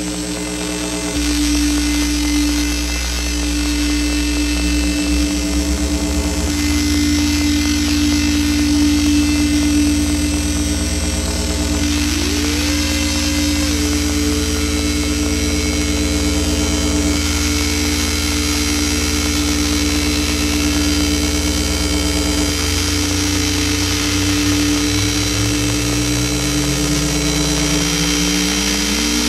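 Synthesizer noise drone from a drone box run through Kaoss Pad effects: a steady buzzing tone with layered overtones, joined by a low rumble about a second in. Around the middle a tone slides up and holds, and over the last several seconds a lower tone glides steadily upward.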